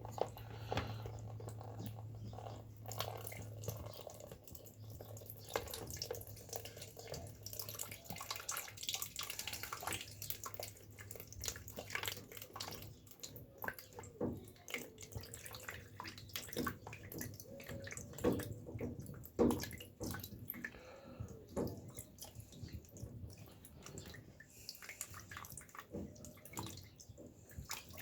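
Water running and dripping out of an opened boiler filter housing into a cup, with small clicks and knocks of handling throughout and a low steady hum in the first few seconds.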